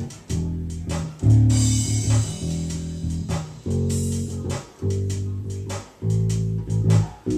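Ibanez SR535 five-string electric bass with Bartolini pickups, played unaccompanied: single notes plucked one at a time, about one a second, each ringing until the next.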